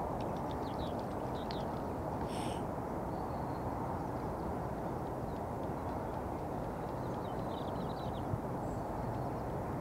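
Steady hum of distant road traffic, with small birds chirping briefly near the start and again near the end, and one short harsh bird call about two seconds in.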